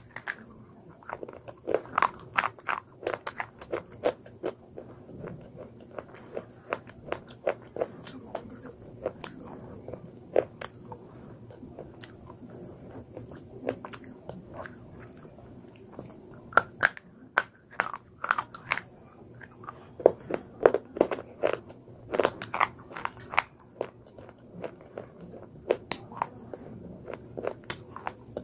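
Crunchy chewing of a white slate pencil bar: a bite right at the start, then many sharp crunches that come in clusters, busiest in the first few seconds and again between about 16 and 23 seconds in.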